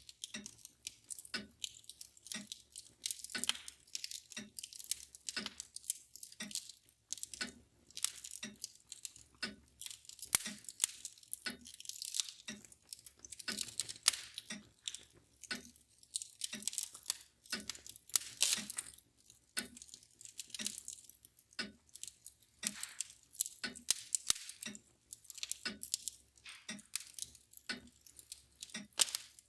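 Wood fire crackling and popping in a fireplace, with a mantel clock ticking steadily about once a second underneath.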